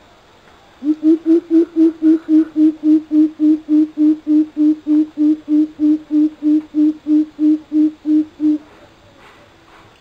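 Coucal calling: a long, even series of deep hoots at one steady pitch, about three and a half a second, starting about a second in and stopping shortly before the end.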